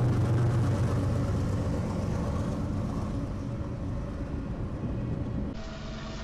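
Diesel freight locomotives passing close by with a steady low engine rumble that fades as freight cars roll past. Near the end the sound cuts to a quieter rumble of another freight train.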